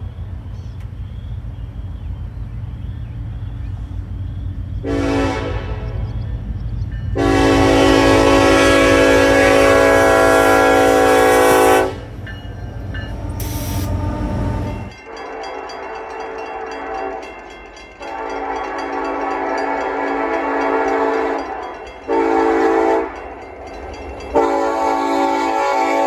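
Nathan K5LLA five-chime locomotive air horn on Union Pacific locomotives sounding for grade crossings: a short blast, then a long loud blast of about five seconds over the low rumble of the approaching diesel locomotives. After a cut, more horn blasts follow: two long, one short, then another long.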